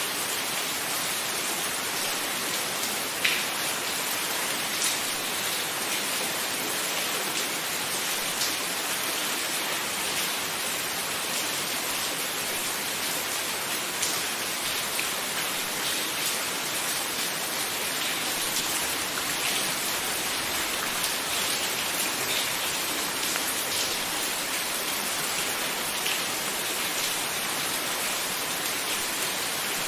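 Steady rain: a dense, even hiss with scattered louder single drops landing close by.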